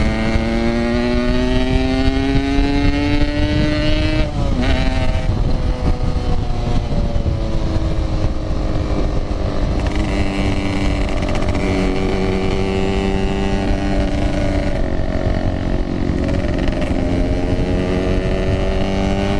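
Yamaha RX-King's 135cc two-stroke single-cylinder engine under way. Its pitch climbs for about four seconds, drops sharply at a gear change, then holds and slowly climbs again as it pulls through the next gear.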